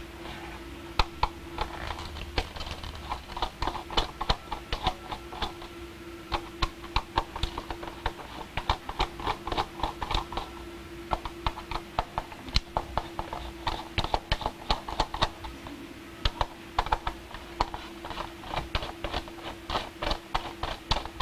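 Phillips screwdriver undoing the four screws that hold a hot tub's plastic control panel: a long run of irregular clicks and taps of metal on hard plastic, over a steady low hum.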